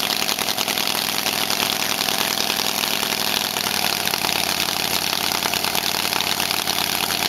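1912 Verdel 750's five-cylinder radial engine running steadily with a rapid, even firing. It has no silencer, and its note shifts slightly a little over halfway through.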